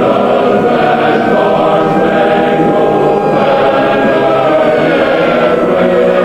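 Several overlapping wailing sirens, slowly rising and falling in pitch, over a dense sustained choir-like drone of held tones.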